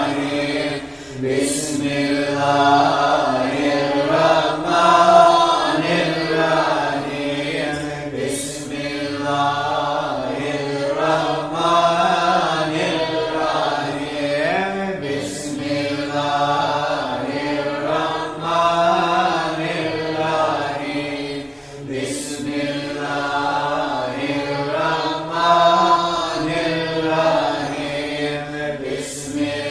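Slow vocal chanting, its pitch moving over a steady low drone.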